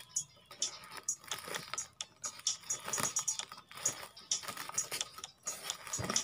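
Black plastic bag wrapping crinkling and crackling in irregular bursts as hands pull at it and cut it open with scissors.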